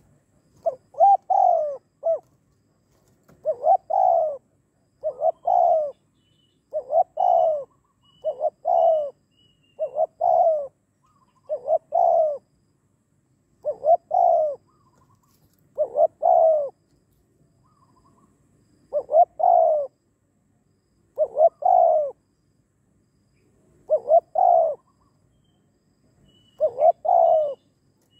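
Spotted dove cooing, its two- to three-note phrase repeated about every two seconds, with one longer pause in the middle.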